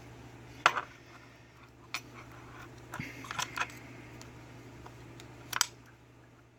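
Small sharp metal clicks and taps, four or five spread over a few seconds with a short cluster in the middle: lock pins and small tools being handled while an Abus 5-pin lock is taken apart. A steady low hum runs beneath.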